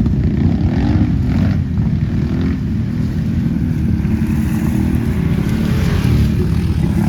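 ATV engine running under throttle while riding, its pitch rising and falling as the throttle changes, with a short rev up and back down about a second in.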